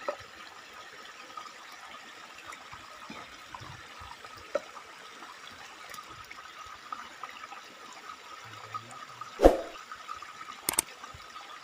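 Steady sound of running water from a small muddy river, with one sharp thump about nine seconds in and a few clicks near the end.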